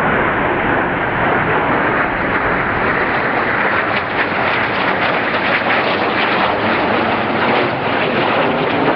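Steady jet roar from the Snowbirds' single-engine CT-114 Tutor jets flying overhead in formation, turning a little brighter and hissier about four seconds in.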